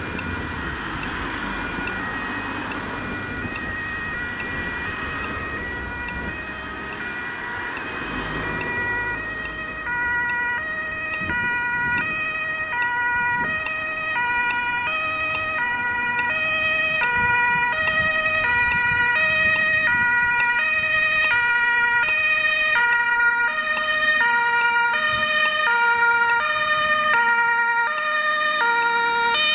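Two-tone German emergency siren (Martinshorn) on an approaching German Red Cross MAN disaster-relief truck, alternating between its two pitches about every three quarters of a second and growing louder as it nears. Traffic passes during the first several seconds.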